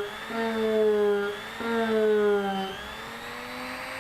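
Small high-speed rotary tool with a polishing bit whining as it works the metal line-guide eye of a baitcasting reel. Its pitch sags under load in three strokes about a second and a half apart, then it runs lighter and higher near the end.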